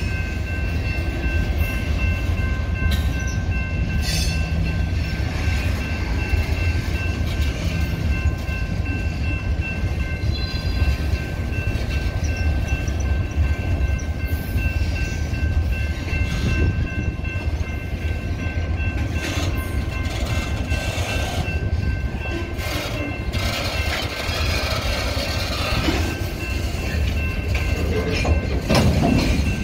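Freight boxcars rolling past: a steady low rumble of steel wheels on rail, with scattered clicks and clunks as the wheels pass over the track. Thin, high steady ringing tones sound through much of the first half.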